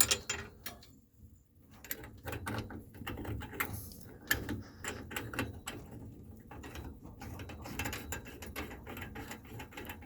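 Irregular clicks and light clatter of hands working a water heater's service valve and hose fitting, with a hose being unscrewed and a cap threaded back on.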